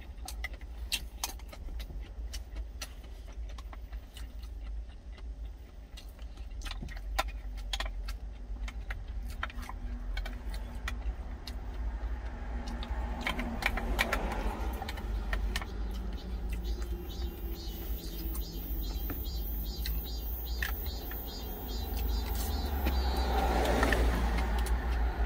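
Wooden spoon clicking and scraping against a small stainless steel food tin, many light clicks during the first half, over a steady low rumble in the truck cab. Louder swells of passing road traffic come in around the middle and again near the end.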